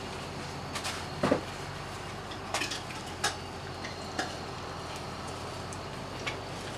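Fork and knife clinking and scraping against a plate as food is cut, a handful of short sharp clinks over a steady low hum.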